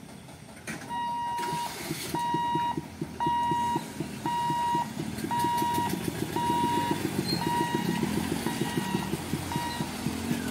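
Level-crossing boom barrier's warning beeper sounding as the barrier lifts: about a dozen evenly spaced beeps of one pitch, roughly one every three-quarters of a second, growing weaker near the end. Motorcycle and vehicle engines run underneath as traffic starts to cross.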